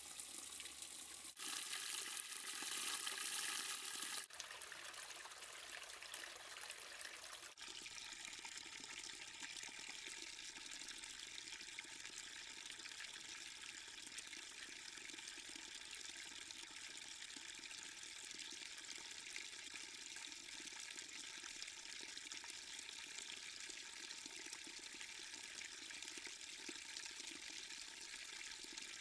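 Rainwater runoff spilling and trickling over volcanic rock in a ravine stream, a steady rush of water. It is loudest for about three seconds near the start and changes abruptly a few times in the first eight seconds, then runs evenly.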